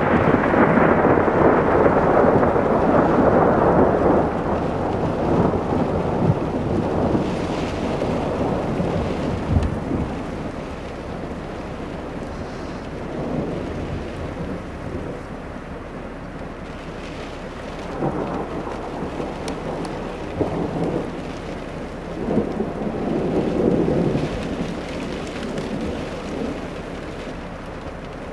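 Thunder in a thundersnow storm: a loud rolling rumble that dies away over the first several seconds, then several softer rumbles later on. Under it runs the steady patter of falling mixed rain and snow.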